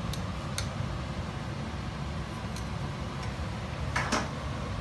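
Plates and a serving spoon clinking lightly a few times on a kitchen hob, with a louder short scrape about four seconds in, over a steady low background hum.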